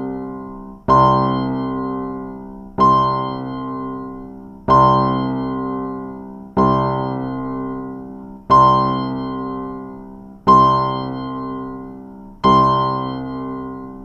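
Music: the same piano-like keyboard chord struck seven times, about every two seconds, each one fading away before the next.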